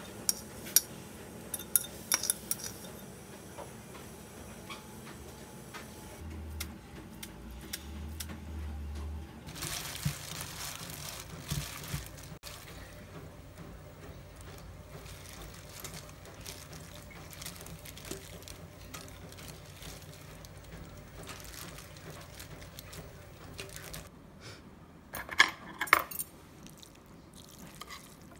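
Metal kitchen utensils clinking and scraping against a stainless steel pot and a ceramic bowl as noodles and vegetables are mixed and served, with a louder cluster of clinks near the end.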